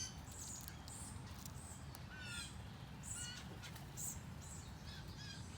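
Harsh, short bird calls, about five, spaced a second or so apart and some dropping slightly in pitch, over fainter high chirping from smaller birds.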